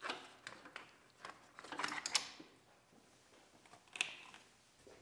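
Light, scattered clicks and rattles of hands handling plastic wiring connectors and parts in a pickup's engine bay, with a busier patch about two seconds in and a single sharper click about four seconds in.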